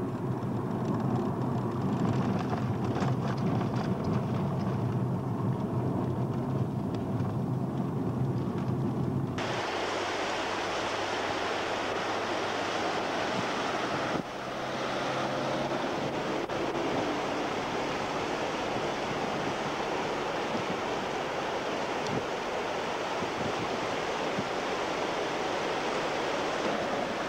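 For the first nine seconds or so, a vehicle's engine and road noise make a steady low hum from inside the moving car. It cuts off suddenly, and a steady rushing of a fast mountain river takes over.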